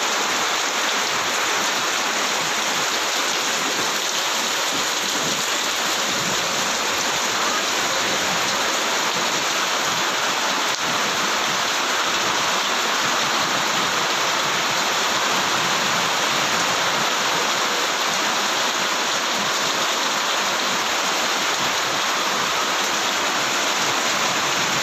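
Very heavy rain falling, a dense steady hiss of countless drops with no letup.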